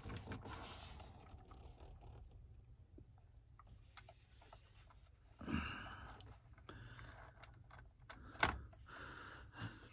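Faint handling noise from a small diecast model car being moved about: scattered light clicks and taps, with one sharper click about eight and a half seconds in, over a low steady hum.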